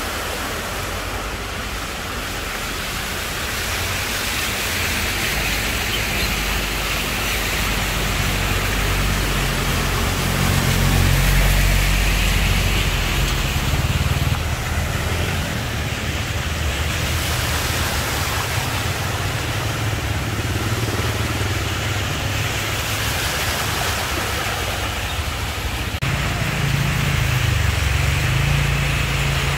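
Cars and motorcycles driving through shallow floodwater, tyres splashing and throwing up sprays of water over a steady rushing hiss. Engines hum as vehicles pass, loudest about eleven seconds in and again near the end.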